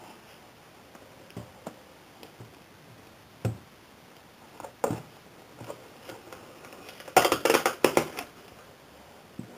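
Cardboard box and its packaging being handled with cotton-gloved hands: scattered light taps and knocks, then a dense rustling and crinkling for about a second near the end.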